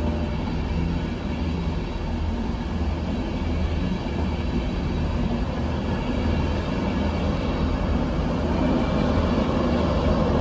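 LNER InterCity 225 electric train pulling out of the station: a steady rumble of wheels and traction with a low hum, slowly getting louder.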